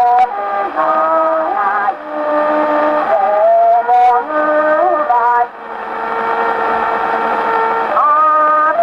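Acoustic Victor Victrola gramophone playing a mechanically recorded Taisho-era 78 rpm shellac disc of a Japanese shoseibushi song, sung by a male voice. The sound comes out narrow and tinny through the horn, over a steady hiss of surface noise.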